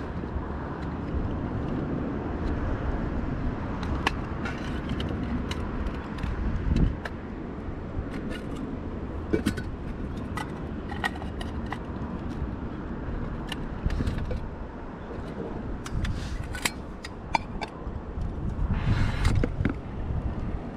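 Steady low wind rumble on the microphone, with scattered light clicks and knocks of camping gear and a metal pot being handled, and a short hiss near the end.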